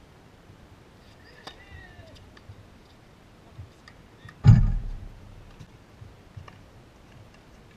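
Faint scattered clicks and knocks of tennis balls being hit and bounced on hard courts, with one loud, low thump about four and a half seconds in that dies away within half a second.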